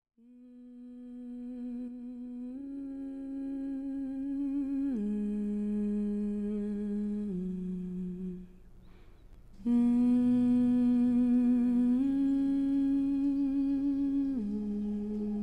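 A voice humming a slow phrase of long held notes with a slight waver, stepping up once and then down twice. About eight and a half seconds in it pauses with a short hiss, then starts the phrase again louder.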